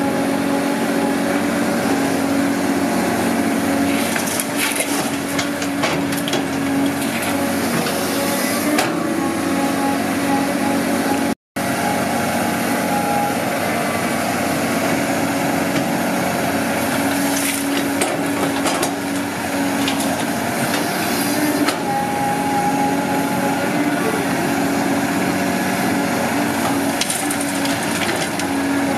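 Caterpillar 320D excavator's six-cylinder diesel engine running steadily under load, overlaid several times by clattering and crunching of soil and stones as the bucket digs and dumps into a dump truck's bed. The audio drops out for a split second about a third of the way in.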